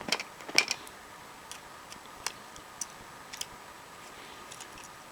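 Scattered small clicks and light taps, irregularly spaced, as a screwdriver pries at and loosens a plastic part inside a Casio GzOne Commando phone.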